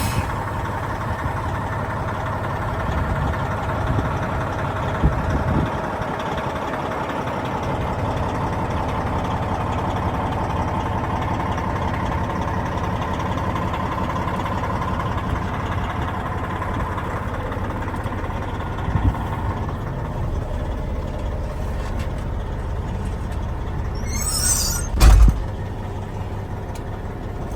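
Detroit Diesel Series 60 inline-six diesel in a 1998 Peterbilt 378 dump truck running steadily. About 25 seconds in, a short burst of air hiss with a thump, like an air brake being released.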